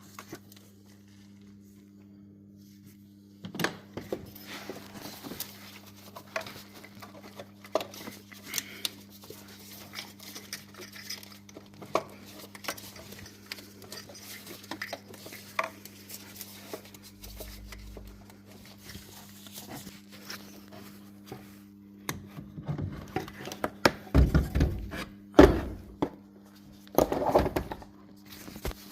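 Scattered clinks and knocks of metal objects being handled, over a steady low electrical hum, with a cluster of louder thumps near the end.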